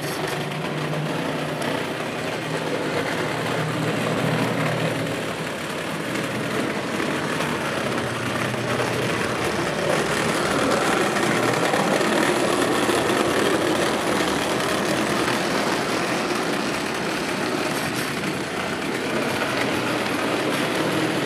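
Vintage Lionel 250 tinplate O-gauge electric locomotive running with its train of freight cars: a steady mechanical running noise from its motor and the wheels on the track, swelling and easing as the train goes round the layout.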